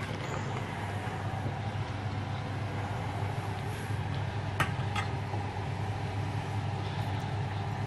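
Soup bubbling at the boil in a stainless steel saucepan over a steady low hum, with two light clinks a little past the middle.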